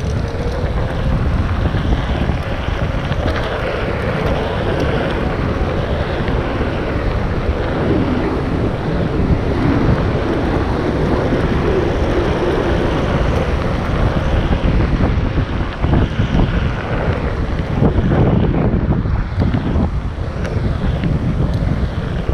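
Wind buffeting the microphone of a rider moving along on a Onewheel XR electric board, steady throughout, with a faint steady whine through about the first half.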